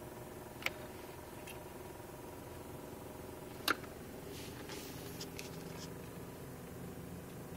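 Irregular sharp ticks inside an Audi A4 B5's cabin over a steady running hum: a loud tick about a second in, another about three seconds later, then a few fainter ticks. This is the ticking the owner is chasing, which does not follow rpm and is not the interior fan.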